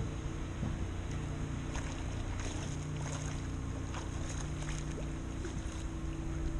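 Outboard motor idling steadily on a small boat, a low even hum with wind and water noise over it.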